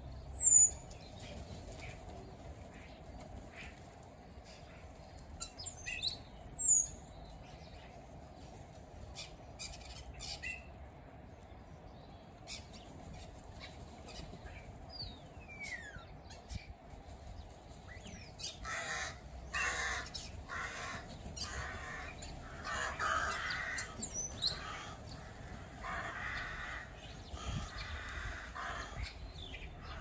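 A mixed flock of crows and starlings calling. Sharp high whistles and chirps come first, the loudest twice in the first seven seconds, then from about halfway through there is a busy run of short harsh calls.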